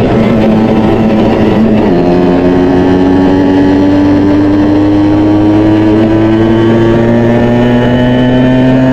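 Honda 49cc two-stroke single-cylinder motorcycle engine running under steady throttle. Its pitch changes about two seconds in, then climbs slowly and evenly as the bike gathers speed.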